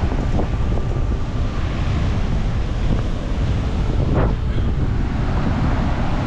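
Strong wind buffeting the microphone with a steady low rumble, over surf breaking on a rocky shore.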